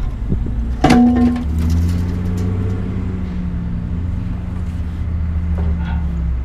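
A heavy steel pipe landing on a scrap pile: one loud metallic clang with a brief ringing tone about a second in, over a steady low engine idle.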